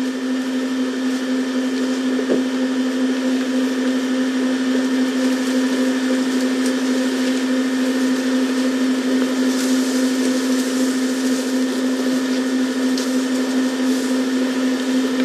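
Steady mechanical hum at one constant pitch over a hiss, unbroken throughout.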